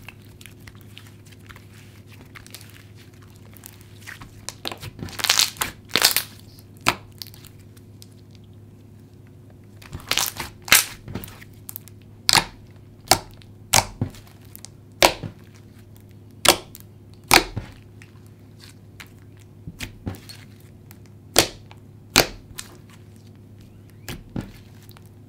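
Hands squishing and pressing a juicy jelly slime, giving sharp irregular pops and clicks as trapped air bursts, over a low steady hum.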